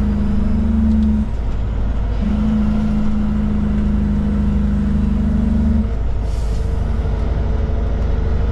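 Kenworth K200 cab-over truck's Cummins diesel heard from inside the cab, a steady drone whose strong low note drops away about a second in, returns, and drops away again near six seconds as the throttle comes on and off. A short hiss of air comes just after six seconds.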